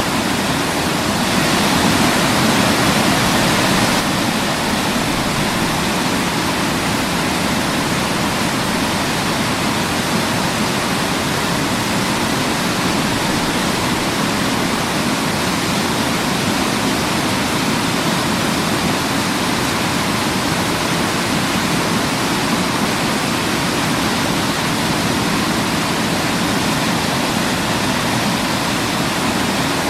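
Waterfall: a steady rushing of falling water, without a break, a little louder for the first few seconds.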